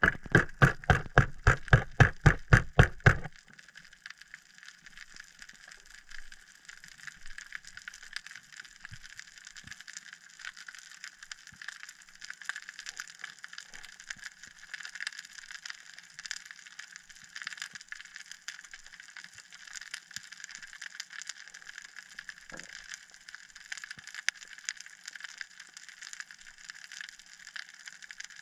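Underwater crackling: a steady fine clicking and ticking of the sea heard through the camera housing. In the first three seconds a quick run of loud low pulses, about six a second, stands over it and then stops.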